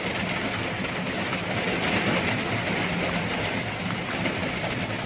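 Heavy rain falling steadily on and around a car, heard from inside through a slightly opened window, over a low steady hum.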